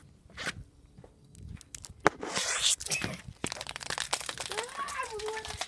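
Rustling and crackling handling noise from the phone being moved about, with many small clicks that thicken in the second half.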